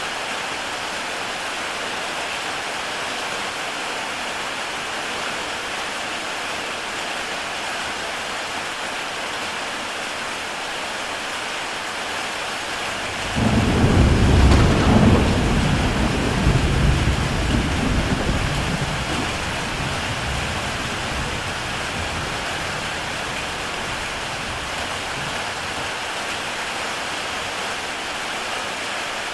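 Heavy rain falling steadily on a tile roof. About 13 seconds in a thunderclap breaks in suddenly with a deep rumble, the loudest sound here, which peaks within two seconds and dies away over the next several seconds.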